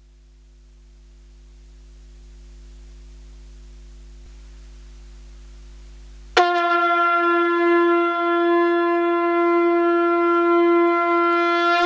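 A faint electrical hum swells slowly. About six seconds in, a wind instrument suddenly sounds one long, steady note and holds it.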